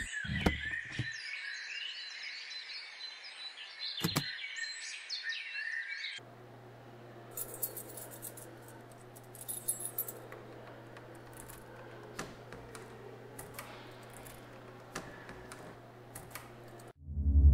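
High chirping, like birds, for about six seconds, with one sharp click. Then a low steady hum, with keys jangling and clicking at a door lock several times.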